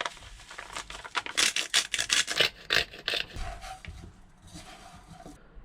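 Hand spice grinder rasping in a run of quick grinding strokes as salt is ground into a coating mix, easing off to faint scraping after about three seconds.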